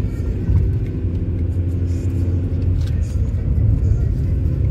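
Steady low rumble of a car on the move, heard from inside the cabin: engine and tyre noise on the road.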